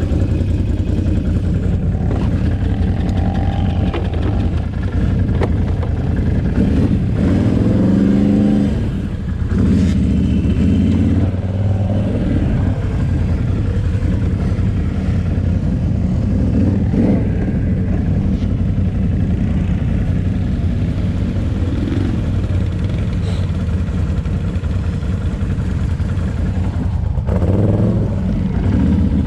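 Can-Am Renegade 800 quad's V-twin engine running close up, ticking over steadily and revved up several times, with longer pulls about a third of the way in and again near the end as the quad moves off over rough ground.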